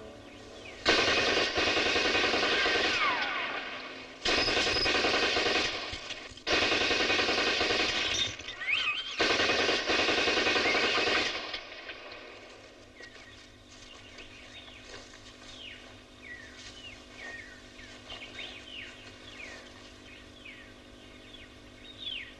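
Machine-gun fire in four long bursts, each lasting about two seconds, spread over the first half. The second half is quieter, with short falling whistles over a steady held tone.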